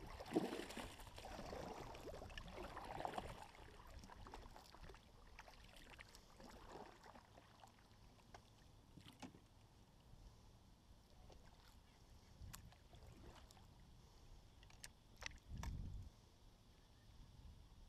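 Kayak paddle strokes in the water, splashing and dripping over the first few seconds, then quieter drifting with scattered light clicks and knocks and a soft low thump near the end.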